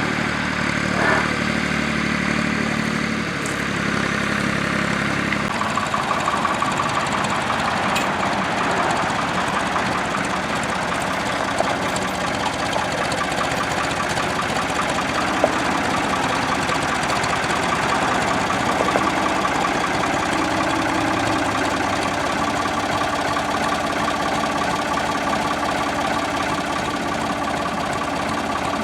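An engine running steadily. About five and a half seconds in its low hum drops away and it carries on with a fast, even rhythm.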